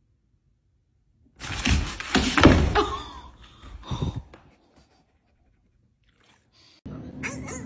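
A large brindle puppy huffing loudly at a green bean, a run of breathy half-barks about a second and a half in and one more about four seconds in.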